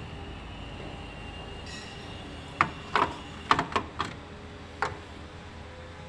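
A quick series of sharp metallic clicks and knocks, about seven in two seconds, from tools and parts being worked loose while the fuel rail and injectors are removed from a Honda HR-V engine.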